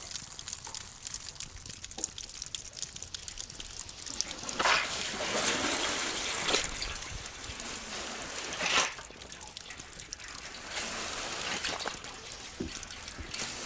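Water draining back down through a drain-back solar hot-water collector's copper pipes after the circulation pump is shut off, trickling and gushing. It swells for a few seconds in the middle with about three brief surges. This is the system emptying the collectors into the tank for freeze protection.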